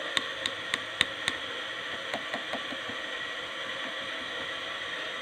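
Light tapping and clicking on a wood router's plastic housing and handle, about six quick taps in the first second and a half and a few fainter ones just after two seconds; the router is switched off. A steady hiss lies underneath.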